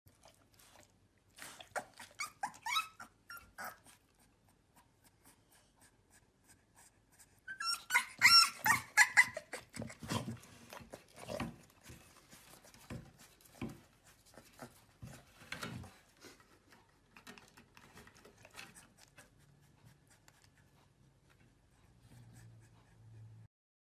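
Chow Chow puppy barking in high-pitched yips: a short run of yips a couple of seconds in, the loudest burst around eight seconds in, then lower, fainter barks that die away.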